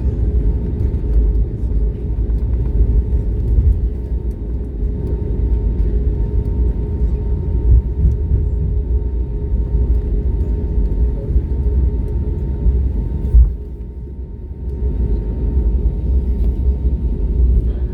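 Cabin noise of an Airbus A320neo taxiing on the runway after landing: a steady low rumble from the wheels and airframe over the hum of its CFM LEAP-1A engines at idle. A sharp thump comes about 13 seconds in, then the rumble is briefly quieter.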